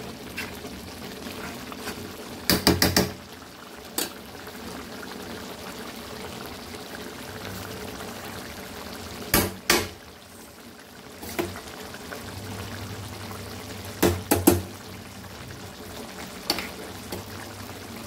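Gongura chicken curry gravy simmering and bubbling steadily in the pan. Short clusters of sharp metal clatters against the pan come about three seconds in, near the middle, and about fourteen seconds in.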